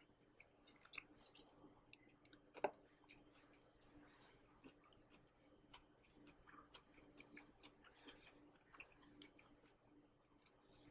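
Faint, irregular crunching and clicking of a person chewing crisp dry-fried green beans, with one sharper click about two and a half seconds in.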